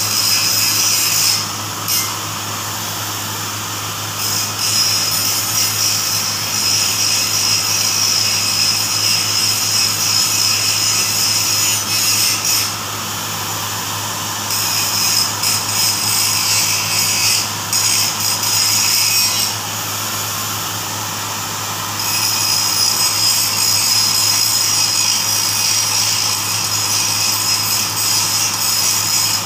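Angle grinder grinding the steel tube frame of a hand trolley cart, in four long passes broken by pauses of two to three seconds. A steady low hum runs underneath.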